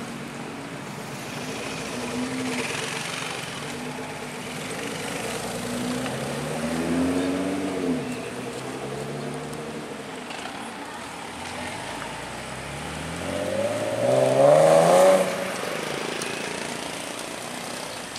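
A Nissan R35 GT-R's twin-turbo V6 pulling away, then a Nissan 370Z Nismo's V6 accelerating away. The engine note rises and falls twice, and the second rise, about fourteen seconds in, is the loudest.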